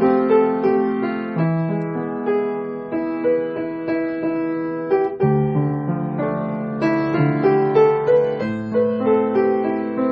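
Background piano music, a gentle melody played over chords at a steady pace.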